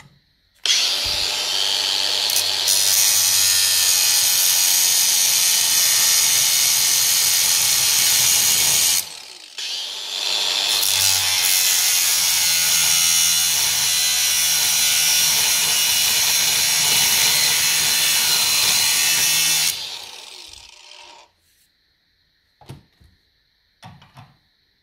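Angle grinder cutting through a steel bolt clamped in a vise, running in two long passes with a brief dip about nine seconds in, then winding down. A few light clicks follow near the end.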